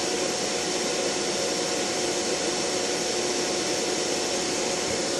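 Large electric fan running steadily: a constant rush of air with a thin steady tone in it.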